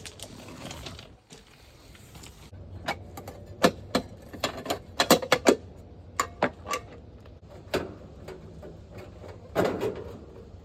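Irregular sharp clicks and knocks of metal being handled, about a dozen over several seconds, as the access panel of an air conditioner's outdoor unit is worked open.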